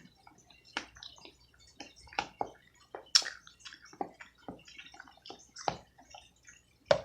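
Close-miked wet eating sounds from someone eating barbecued neck bones: irregular lip smacks and sucking clicks, about a dozen in all, with a sharper one about three seconds in and another near the end.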